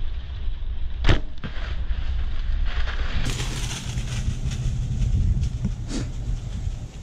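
Wind buffeting the microphone as a steady low rumble, with a sharp click about a second in and another near the end.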